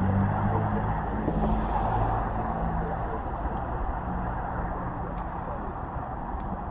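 A motor vehicle's engine running with a low steady hum that fades out over the first few seconds, over a steady rush of road traffic.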